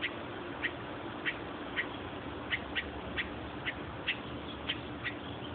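A bird squawking from the bushes: short, sharp calls repeated over and over, about twice a second at an uneven pace.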